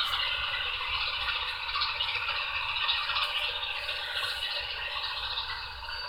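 MTH GE Evolution hybrid model locomotive's onboard sound system playing its shutdown sequence: a steady, noisy diesel engine sound from a small speaker that eases off a little toward the end.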